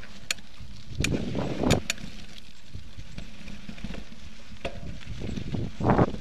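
Mountain bike rolling over a dry dirt trail, heard from a camera riding on it: a steady rumble of tyres and rattle, with a few sharp clicks and brief gusts of wind noise about a second in and near the end.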